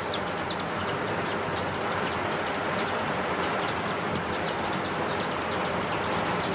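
A swarm of hummingbirds at feeders: a steady high-pitched trill over a dense whir of wings.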